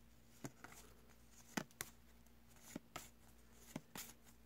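Faint near-silence broken by soft clicks and flicks of glossy trading cards being slid off the front of a hand-held stack and tucked to the back, in pairs about once a second, over a low steady hum.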